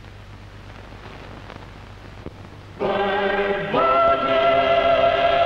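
Low mains hum and hiss of an old television soundtrack, then about three seconds in the introduction of a ballad record begins suddenly with held orchestral chords, one line sliding up to a sustained higher note.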